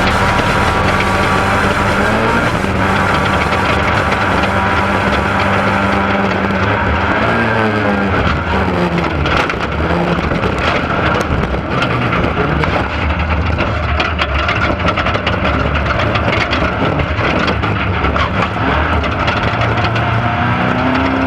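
Off-road race car engine running hard. Its pitch holds steady, drops and climbs again as it shifts and changes throttle, then rises near the end. Short knocks and rattles come through over the rough desert ground.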